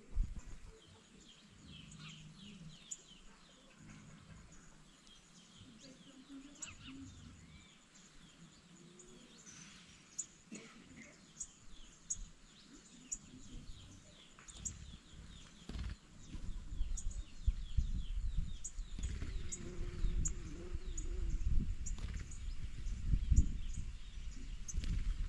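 Canary singing: rapid twittering trills with sharp high ticking notes. About two-thirds of the way in, a low rumbling, knocking noise comes up and becomes the loudest sound.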